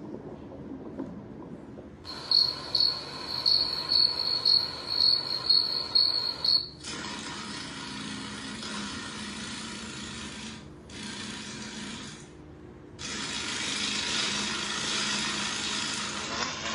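Insect sound effects from a cat-game video playing on a smartphone: a high chirping, repeated about twice a second for some four seconds, then a steady hiss that breaks off briefly twice and grows louder near the end.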